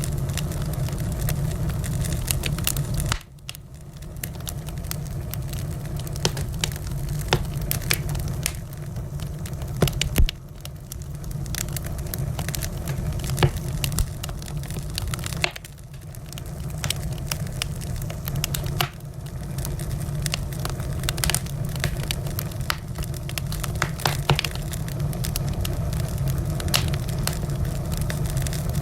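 Wood fire crackling and popping with scattered sharp snaps over a steady low rumble of burning; the rumble dips suddenly a few times and builds back.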